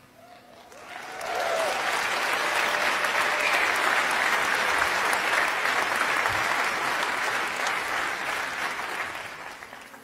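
Theatre audience applauding, the clapping swelling up over the first second or two, holding steady, then dying away near the end.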